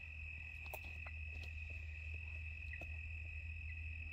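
Crickets trilling in a steady, high, unbroken chorus, with a few faint clicks and a low steady rumble underneath.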